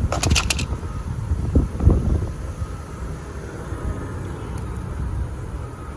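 Hand work on a tyre plug kit with pliers, pulling the sticky rubber plug strip through the insertion tool's eye: a quick cluster of clicks right at the start, then a couple of dull knocks, over a steady low rumble of wind on the microphone.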